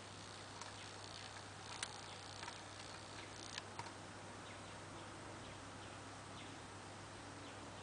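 Faint, irregular small clicks of a hook pick and tension wrench working the pins inside a pin-tumbler rim cylinder, most of them in the first half, over a steady low hum.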